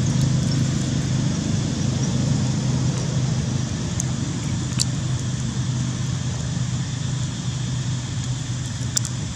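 Steady low rumble of a nearby motor vehicle engine, with a few faint clicks about halfway through and near the end.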